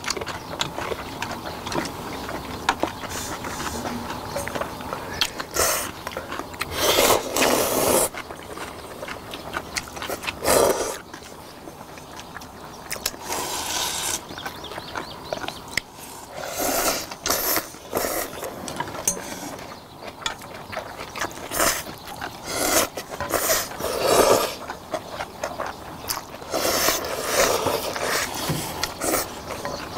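Several people slurping cold noodles and broth in repeated noisy bursts, with chewing in between.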